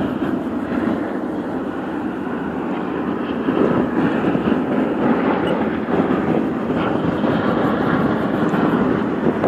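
Steady drone of the radial piston engines of a formation of DC-3 transport planes passing overhead.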